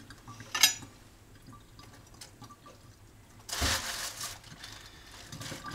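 Water in a kitchen sink as a fish is rinsed: dripping and light splashing, a sharp knock under a second in, and a rush of running water about three and a half seconds in.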